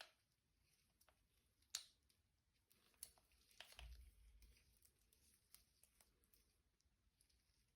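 Faint handling noises: scattered light clicks, with a brief rustle about three and a half seconds in.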